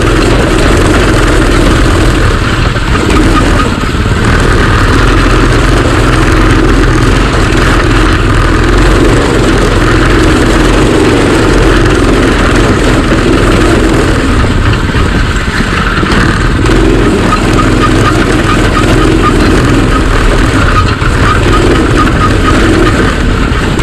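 Go-kart engine running loudly and steadily as the kart drives along a dirt trail.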